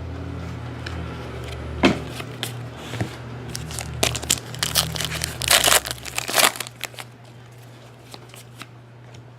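A trading card pack's wrapper crinkling and tearing as it is opened, with clicks and rustles from handled cards, busiest about halfway through and quieter near the end.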